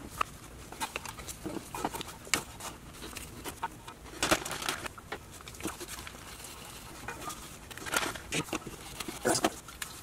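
Small irregular clicks, taps and light metallic rattles of hands fitting plastic timing-chain guides and their bolts around a balance shaft chain on a 2.4 L Ecotec engine, with a few louder clusters of clicks about four, eight and nine seconds in.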